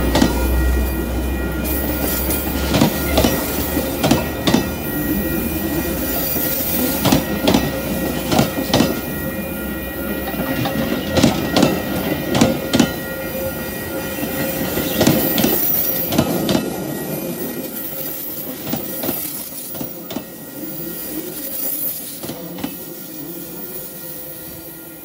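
Metra bilevel commuter coaches rolling past close by, with a steady high-pitched wheel squeal and irregular clicks of wheels over rail joints. The sound fades over the last several seconds as the end of the train goes by.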